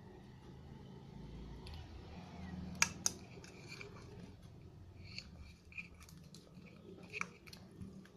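Slime being mixed and handled in a container: two sharp clicks about three seconds in, then scattered light clicks and soft sticky sounds.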